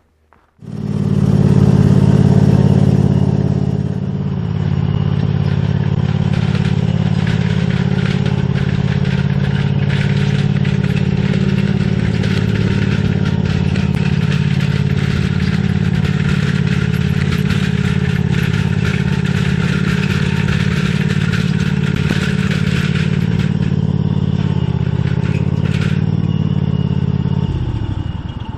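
Riding lawnmower engine running steadily at close range, starting abruptly near the beginning and dropping away near the end. Through most of the middle a trailer rattles and clatters over bumpy ground.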